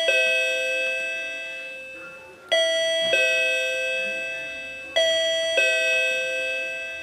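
Token number machine's electronic ding-dong chime sounding over and over: a higher note then a lower one, each ringing out and fading, with a pair about every two and a half seconds.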